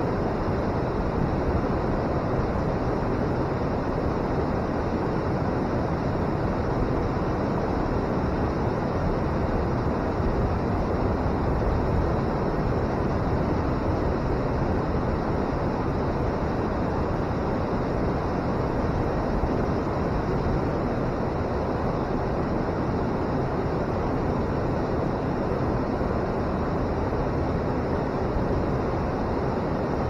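River water pouring over a weir and churning in the pool below it: a steady, low roar of rushing water that holds one level, with no breaks or separate splashes.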